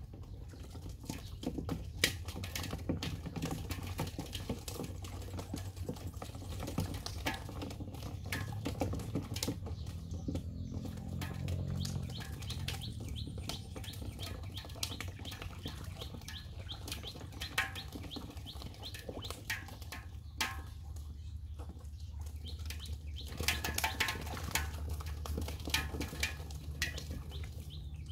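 Irregular splashing and slapping in shallow muddy water as stranded fish flap and a person wades through the mud grabbing them by hand, over a low steady rumble.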